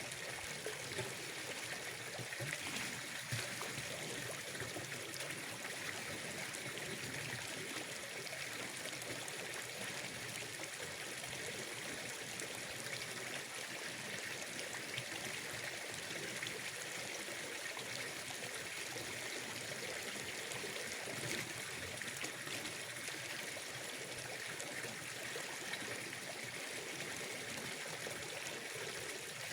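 Running water trickling steadily, an even flowing-water hiss with no breaks or distinct events.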